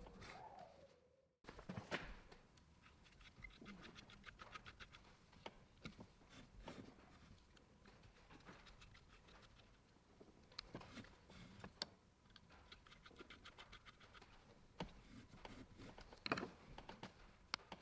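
Faint clicks and light metal scrapes as a screwdriver and small hand tool turn screws and fittings in a painted metal motor end housing. The sound cuts out completely for a moment about a second in.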